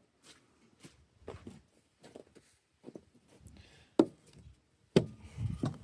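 Scattered taps and knocks of wood and tools being handled on the workbench, with two sharp knocks about a second apart near the end.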